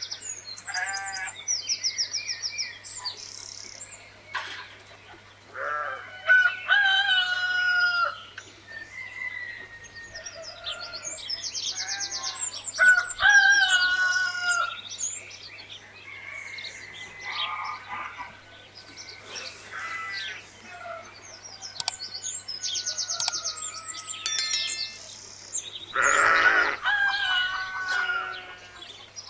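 Chickens clucking with a rooster crowing several times, and small birds chirping in high, rapid trills.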